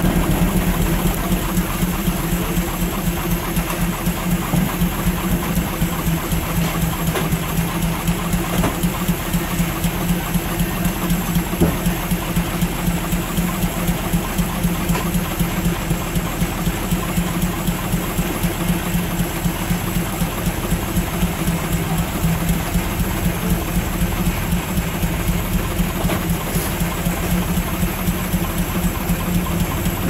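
Frick 8x10 steam engine running a sawmill, going steadily with a rapid, even beat.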